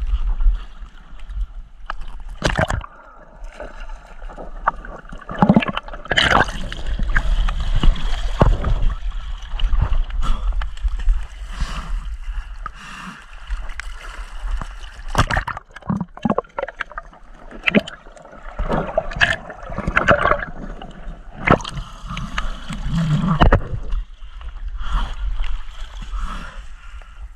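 Shallow seawater sloshing and splashing as people wade through it, with irregular louder splashes close by throughout.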